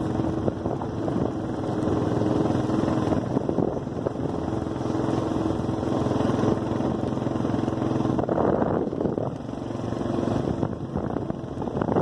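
Four-wheeler (ATV) engine running steadily as it drives along, with a brief easing about nine seconds in.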